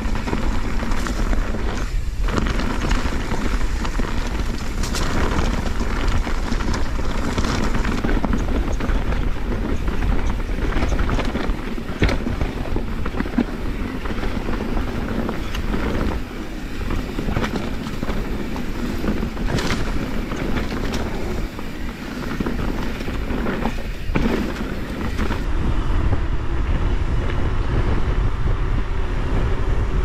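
Wind rushing over an action camera's microphone while a mountain bike rolls fast down a dirt trail, with frequent clattering knocks from the bike over rocks and bumps.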